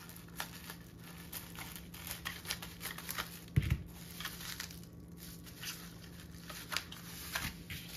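Small bubble-wrap mailer being cut open with scissors and unfolded by hand: crinkling and crackling of the plastic, with a dull knock about three and a half seconds in as the scissors are set down on the table.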